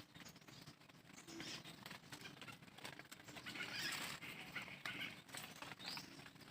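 Faint bird calls: several short calls, the strongest about four seconds in, over a low, uneven background rustle.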